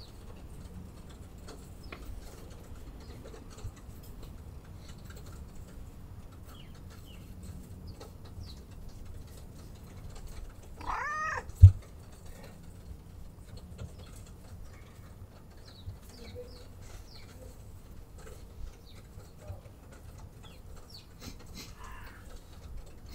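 Domestic cat purring steadily while being stroked, with one meow about eleven seconds in. Just after the meow comes a single short low thump, the loudest sound.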